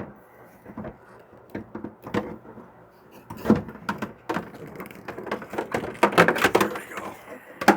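Plastic parts of a hydroponic grow system being handled and fitted together: a string of knocks, clicks and rattles, busiest about six to seven seconds in.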